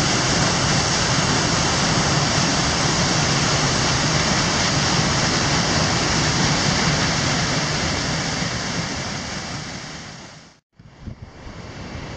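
Dredge discharge of sediment-laden water gushing from an outlet and splashing across a concrete apron: a loud, steady rush of water. It fades and cuts off about ten and a half seconds in, and a fainter rush of falling water follows.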